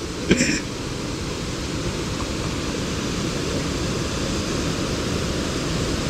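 Steady rush of a waterfall pouring into a rocky plunge pool, with a brief splash-like sound about half a second in.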